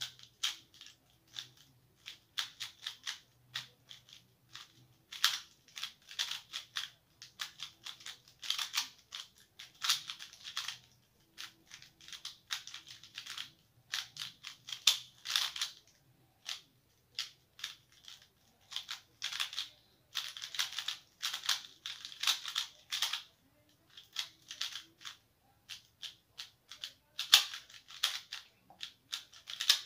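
QiYi Valk 3 M magnetic 3x3 speedcube being turned fast during a timed solve: quick runs of clicking layer turns, broken by short pauses.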